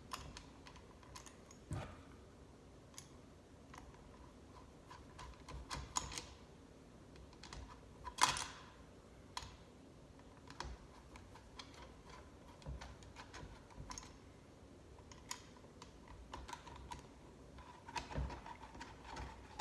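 Scattered light clicks and taps of garbage disposal parts being handled and fitted under the sink, with one sharper knock about eight seconds in.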